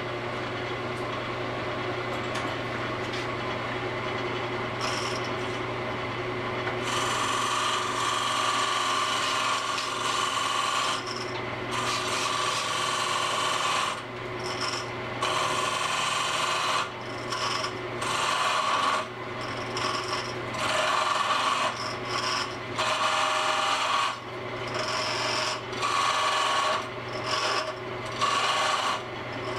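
Wood lathe running with a steady motor hum while a hand-held turning tool cuts into a spinning cedar blank. The cutting comes in repeated passes of a second or two with short breaks, starting about seven seconds in.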